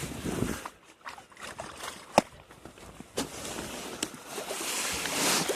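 Kayak being launched and paddled off a muddy bank: water swishing and splashing, with a few sharp knocks of the paddle on the hull, the loudest about two seconds in.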